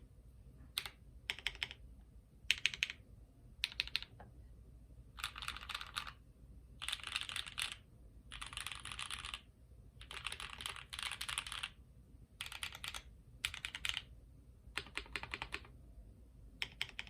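Custom HHKB-layout mechanical keyboard with an aluminium top and brass bottom case, carbon fibre plate, Cow switches lubed with Krytox 205g0 and filmed, and GMK keycaps, being typed on. Short bursts of a few keystrokes alternate with longer runs of fast, dense typing in the middle, with brief pauses between.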